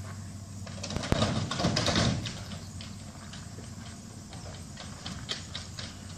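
Footsteps crunching on a gravel drive, a few steps a second, after a louder stretch of rough noise about a second in.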